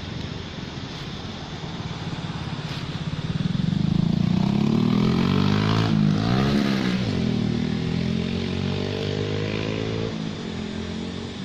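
A motor vehicle's engine passing close by. It grows louder over the first few seconds, its pitch drops sharply as it goes past about six seconds in, and it runs steadily before fading near the end.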